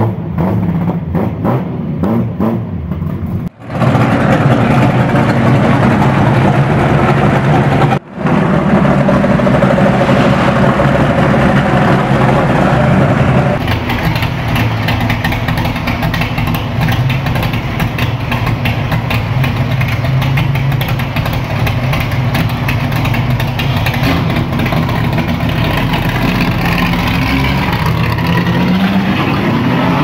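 Chevrolet Opala inline-six engines across several cuts. The first idles with an uneven, pulsing beat, and after a short break a few seconds in the engine is revved loudly. From about halfway, an Opala six runs steadily as the car pulls away.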